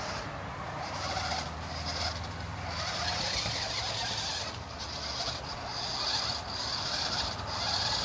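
Toy remote-control stunt car's small electric motors and gears whirring in short bursts, starting and stopping every second or so as it is driven through snow.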